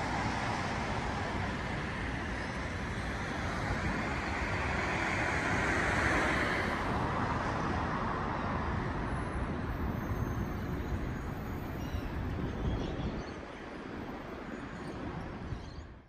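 Road traffic passing on a busy multi-lane road, a steady rush of tyres and engines. One vehicle passes closer around six seconds in, the loudest moment, and the traffic eases off somewhat near the end.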